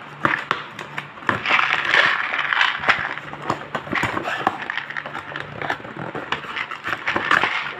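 Cardboard shipping box being handled and its flaps pulled open: irregular rustling, scraping and crackling of cardboard.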